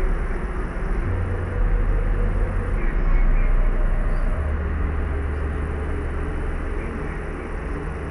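Steady layered purple noise, an even hiss heaviest in the lows, with a low hum underneath that shifts pitch a few times.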